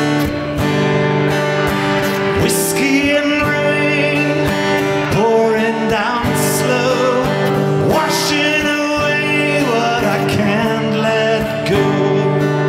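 Live guitar music: strummed chords held under a melody line that glides up and down over them.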